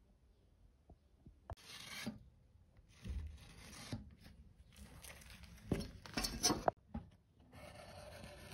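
A marker scratching across a rough wooden board as lines are drawn against a steel ruler, in several strokes of a second or two each. A few light knocks come in between as the ruler and board are handled.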